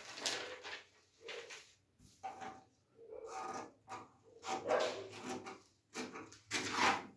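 Scissors cutting through pattern paper in a series of crisp snips, a little more than one a second, the loudest near the end.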